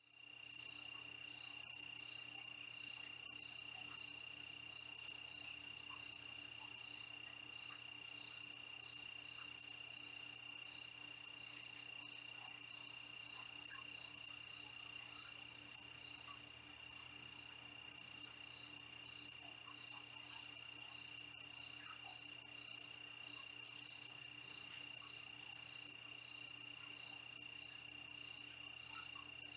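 Crickets chirping: a loud high chirp repeated evenly about one and a half times a second, turning sparser and irregular in the last third, over a steady high insect trill that comes and goes in long stretches.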